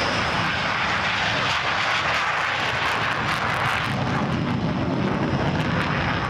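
Loud, steady roar of military jet engines as a MiG-29 fighter takes off. About four seconds in the sound changes and deepens, with Tornado jets on the runway.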